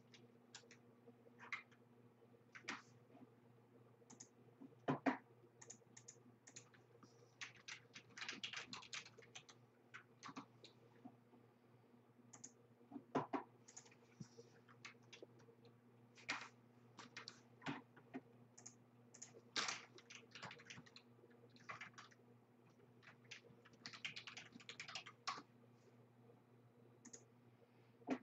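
Faint typing on a computer keyboard: irregular runs of key clicks with pauses between them, over a steady low electrical hum.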